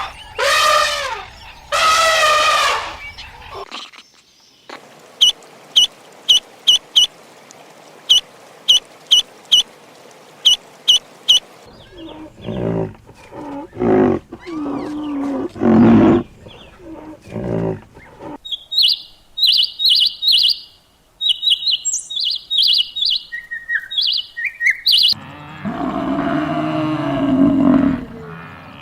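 A run of different animal calls cut one after another. There are lower pitched calls at the start, around the middle and near the end. Between them come two spells of short, high bird chirps, the first in evenly spaced notes of about two a second.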